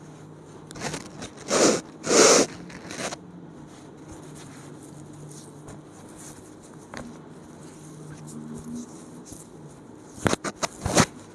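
Rustling and scraping handling sounds: two loud scrapes about a second and a half and two seconds in, then a faint steady background, and a quick run of sharp clicks near the end.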